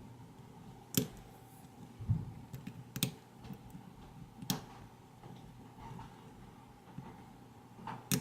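A lock pick and tension wrench working the pins of an ACE A527 padlock's American-style core during single-pin picking: a few sharp clicks spaced a second or more apart, with a soft low knock about two seconds in.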